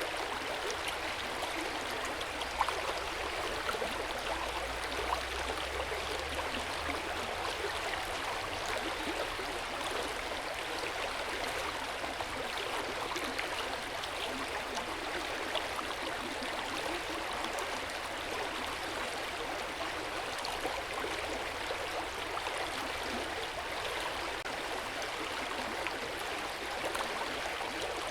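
Hot spring water pouring and splashing steadily into an open-air bath, an even rushing with small splashes. A faint low rumble runs under it for the first several seconds.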